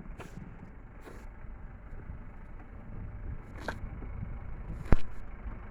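Vehicle engine idling with a steady low rumble, broken by a few sharp clicks or knocks, the loudest near the end.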